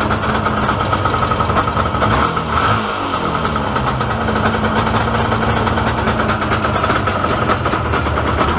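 Izh Jupiter-5 motorcycle's two-stroke twin-cylinder engine running, both cylinders firing but not running smoothly. Its speed dips briefly about three seconds in and then picks up again.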